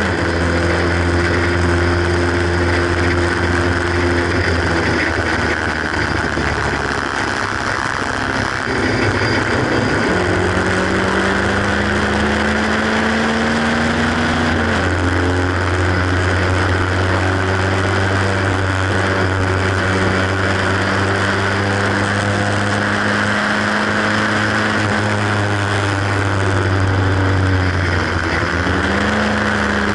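Haynes Roadster kit car's 1.8-litre engine at full speed on track, heard from the open cockpit under heavy wind noise. The engine note eases off, then climbs as the car accelerates, drops sharply at an upshift about halfway, holds steady, and drops again at another shift near the end.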